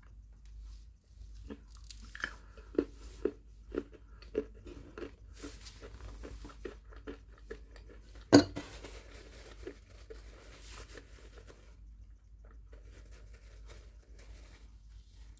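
Close-up crunchy chewing of a pistachio chocolate bar, sharp crunches about twice a second that soften as it goes on, with a single loud knock about eight seconds in.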